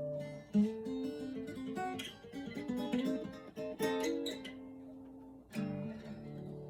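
Guitar music, likely acoustic. A chord is strummed about half a second in, followed by a run of single picked notes. Another chord is strummed near the end and left ringing.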